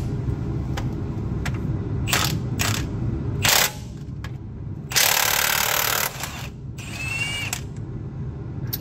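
Impact wrench run in several short bursts and one longer burst of about a second, loosening the main bearing cap bolts on a Detroit Diesel Series 60 engine. A steady low hum runs underneath.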